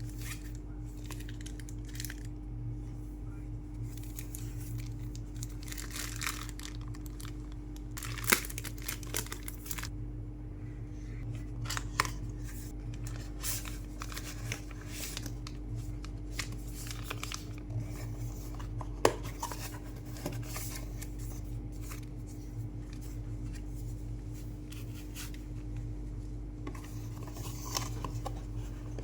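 Product packaging being opened by hand: plastic and cardboard rustling, crinkling and tearing, with a few sharp clicks and taps, over a steady low hum.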